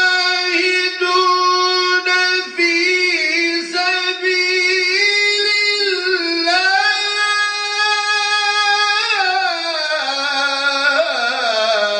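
A man reciting the Qur'an in the melodic chanted style, amplified through a lectern microphone. It is one long phrase with ornamented turns, held high and then falling in pitch over the last few seconds before it stops.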